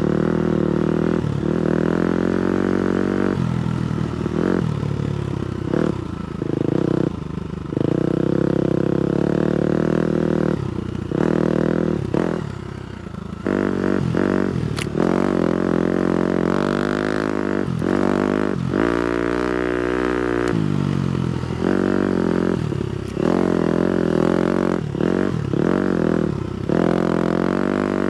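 250cc four-stroke single-cylinder motocross bike engine being ridden, revving up and down with the throttle, with short drops between pulls and a slower, lower-pitched stretch about twenty seconds in.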